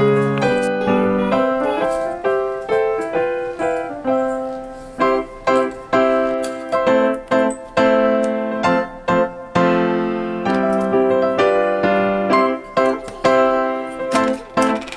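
Background piano music: a light melody played note by note over chords.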